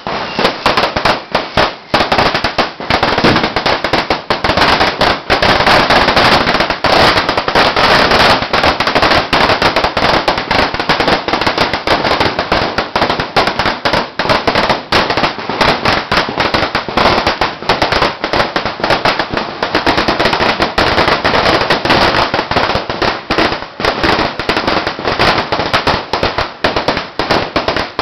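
A long string firecracker (the 10,000-round 'Sawa') going off, a dense continuous rattle of rapid bangs with no pause.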